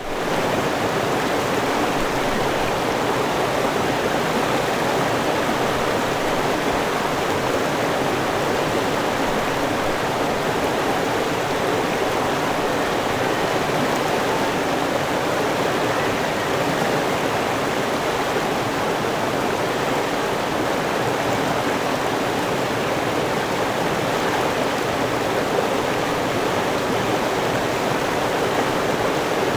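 River water rushing over rocks, a steady, dense noise without breaks.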